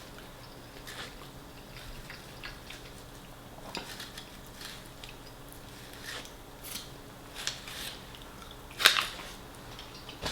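Close-up eating sounds: chewing and crunching fried chicken, with scattered short crunches and clicks, the loudest about nine seconds in.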